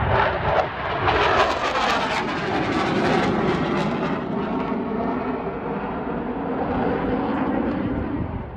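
Jet roar from Blue Angels F/A-18 Super Hornets flying overhead: loud and hissing with a sweeping, swirling quality for the first few seconds, then easing into a steadier, duller rumble.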